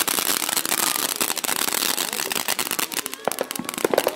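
Ground fountain firework spraying sparks: a steady hiss packed with dense, rapid crackling.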